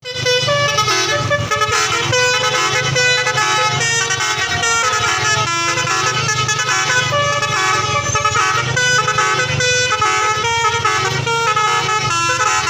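Bus telolet horns, multi-tone musical horns, playing melodies on and on, several sounding over one another in call and answer, with a steady low rumble underneath.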